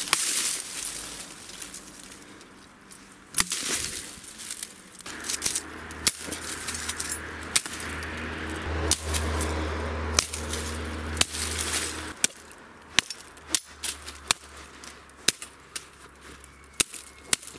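Billhook chopping through thin branches and saplings: a series of sharp cracking strikes at uneven intervals, coming more often near the end, with dry twigs and leaves rustling between them. A low rumble sits in the background through the middle.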